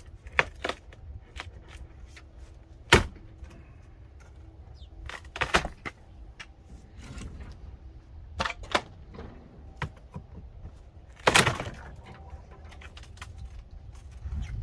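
Old wooden siding and a bottom board being pried and ripped off a building wall: irregular sharp knocks and cracks a few seconds apart, the loudest a bit past eleven seconds in, over a low steady rumble.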